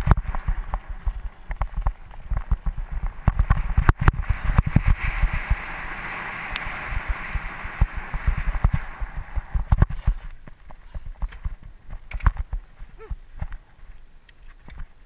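Mountain bike rolling over a rough, rocky dirt trail: irregular knocks and rattles from the bike and camera mount over bumps, with a rushing noise of tyres and wind. It eases off after about ten seconds, leaving sparser knocks.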